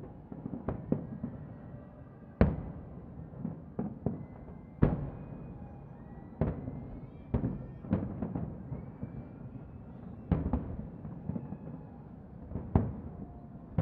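Distant aerial fireworks going off: about a dozen sharp bangs, unevenly spaced a second or two apart, over a continuous low rumble.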